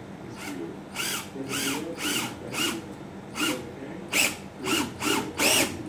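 Parkside PBSA 12 D2 12V cordless drill/driver driving a screw into wood on its lowest clutch setting, run in about a dozen short trigger bursts. The motor whine rises and falls with each burst, and the last few near the end are the loudest.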